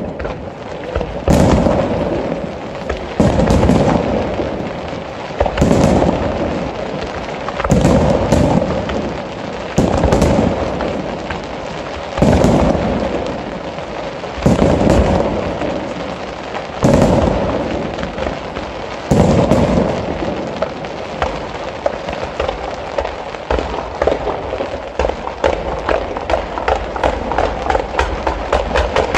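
Aerial fireworks shells bursting in a steady series, a heavy boom about every two seconds, each fading away over a second or so. In the last third the single booms give way to a rapid crackling of many small reports.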